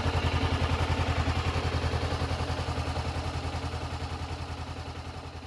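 Honda CB500X's 471 cc parallel-twin engine idling through its stock silencer, a steady even pulse that fades gradually toward the end.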